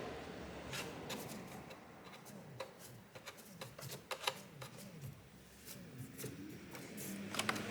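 Hoverboard hub-motor wheel being turned and handled by hand: irregular faint clicks and ticks over a low rubbing rumble. This is the wheel that feels rough and refuses to spin freely.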